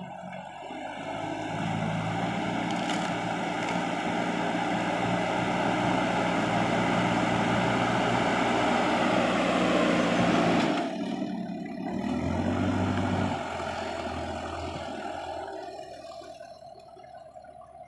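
Backhoe loader's diesel engine working hard as the front bucket pushes soil, then dropping back about ten and a half seconds in, with a short rise around twelve seconds before running lower.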